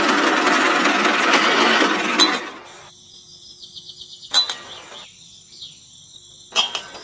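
Small motor of a homemade model tractor running with a loud, even drone, which cuts off after about two and a half seconds. Then a faint high whine with two sharp metal clinks as a metal pin is dropped into the tractor's trailer hitch.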